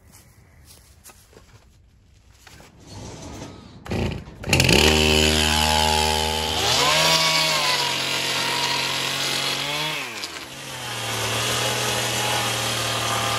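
Stihl two-stroke chainsaw pull-started about four seconds in, catching and running. About two seconds later it revs up and holds high for a few seconds, then drops back to a steady lower speed.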